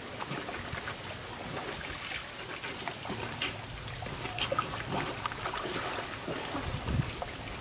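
Water sloshing and splashing around a water buffalo's muzzle as it feeds with its head down in a shallow muddy pond, with irregular small splashes and drips.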